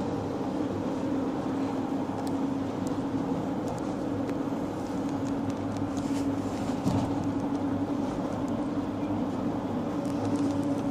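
Mercedes-Benz Sprinter minibus heard from inside the passenger cabin while driving: a steady engine hum with road and body noise.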